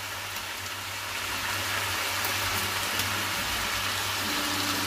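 Vegetables sizzling in a hot pan, a steady hiss that swells a little about a second in, just after broccoli and celery go in.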